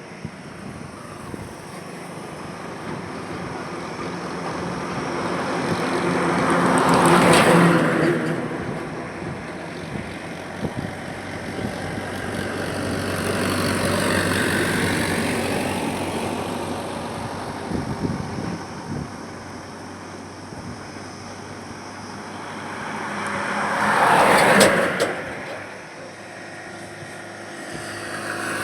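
Highway traffic with vehicles passing one after another, each swelling and fading. The two loudest, closest passes come about seven seconds in and a few seconds before the end, with a gentler swell in between.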